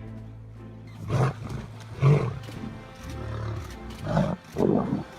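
Lions roaring and growling in about four short, loud outbursts, over background music with a steady low hum.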